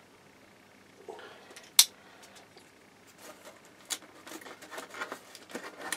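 Hands working open a cardboard box: one sharp snap a little under two seconds in, then scattered small clicks and rustling of cardboard.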